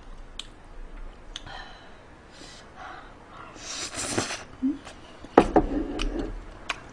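Close-up eating sounds: faint clicks of chopsticks, then a short slurp about four seconds in as food is sucked in off a small dish held to the mouth. A sharper click follows, then faint chewing.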